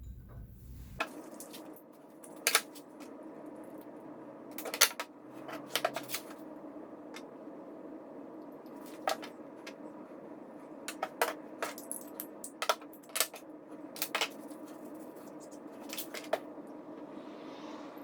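Scattered sharp metallic clicks and clinks, about a dozen spread through the stretch, from lighters and lighter-fluid gear being handled while the lighters are filled. A steady low hum sits underneath.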